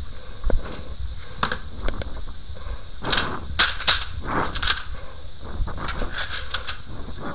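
Several sharp knocks and clatters from gear being handled close to the microphone, loudest in a cluster about halfway through, over a steady hiss and a low rumble.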